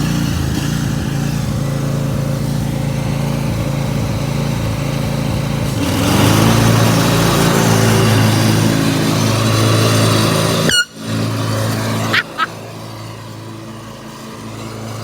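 Lawn mower engine running steadily after starting, getting louder about six seconds in, then briefly cutting out and settling lower near the end.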